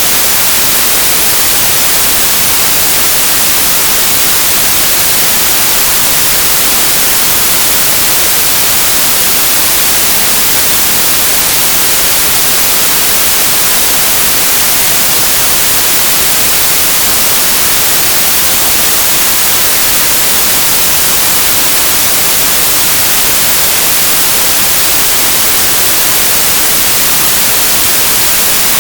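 Synthesized white noise: a steady, loud hiss with equal power across frequencies, so it sounds bright, unchanging throughout.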